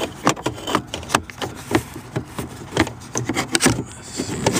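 Handling noise: irregular knocks, taps and rubbing as the camera is brought in close against the trim around the keypad control module.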